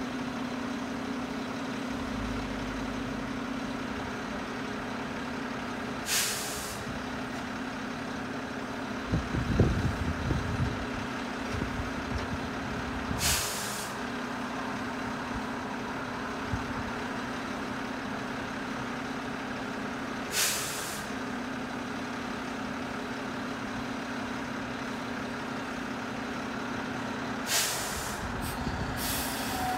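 Front-loader garbage truck idling steadily, with a short burst of air hissing from its air system about every seven seconds, four times. About nine seconds in come a few seconds of low rumbling and knocks.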